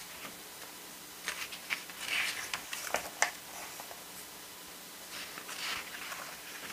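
Stiff glossy photobook pages turned by hand: paper rustling and handling clicks as a page is turned, with a sharp tap about three seconds in, then a softer rustle as the next page is lifted.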